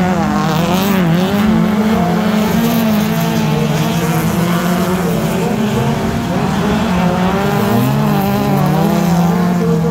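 Race car engines, several at once, revving hard on a gravel track. Their pitches rise and fall as the cars shift and take corners.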